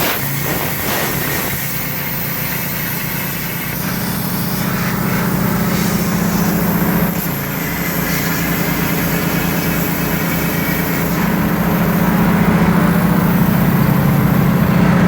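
A small engine running steadily, getting louder about four seconds in and again near eleven seconds, with a high hiss over it, while a plasma cutter cuts slots in a steel pipe.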